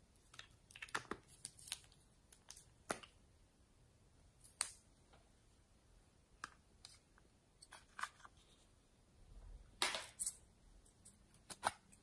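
Slime being worked by hand, giving faint, irregular small clicks and pops, with a denser burst of crackling about ten seconds in.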